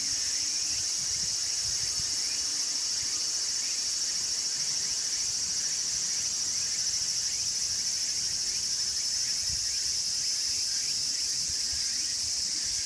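Tsukutsukuboshi cicada (Meimuna opalifera) singing: a loud, steady, high-pitched buzz that does not let up.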